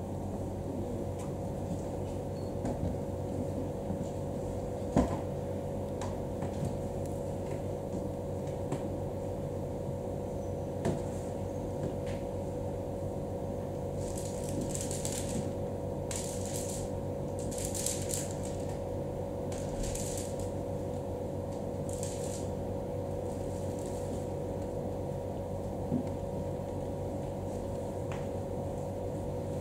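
Steady hum of a quiet room with a few soft knocks, and midway a run of about six short hissing swishes.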